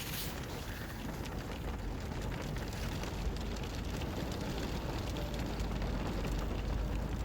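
Small hail mixed with snow falling steadily onto surfaces, a dense hiss made of many tiny ticks, with a low rumble underneath.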